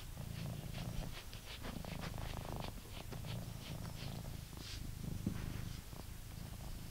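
British Shorthair cat purring steadily while it is brushed, with the short scratchy strokes of the brush through its fur.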